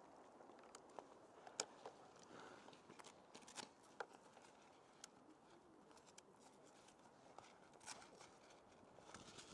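Near silence broken by a scattering of faint, short clicks and snaps.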